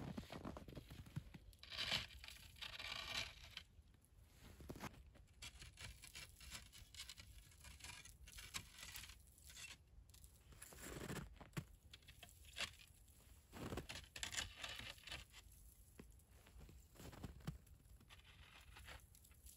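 Slabs of ice scraping and grating against each other as they are fitted onto a stick frame, with crunching steps in frozen snow. The sounds come as a string of separate, uneven scrapes and crunches.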